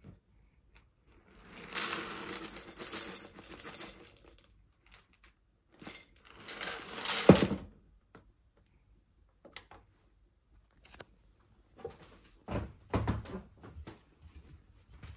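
Household handling noise: two stretches of rustling and scraping, the second ending in a sharp knock, then a few light knocks and thumps near the end.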